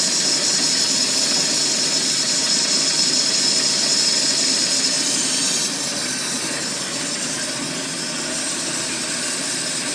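Newly installed Mercruiser 3.0 L four-cylinder marine engine running steadily after its first start. It becomes a little quieter just past halfway.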